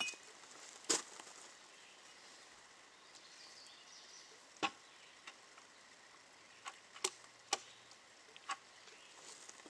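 Brick setting by hand: a handful of short sharp clicks and knocks, the loudest about a second in and just before the middle, from bricks and a bucket being handled, over a quiet outdoor background.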